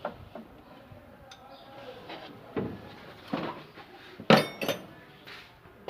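Metal hand tools and parts clinking and knocking against each other. A louder sharp metallic strike about four seconds in rings briefly.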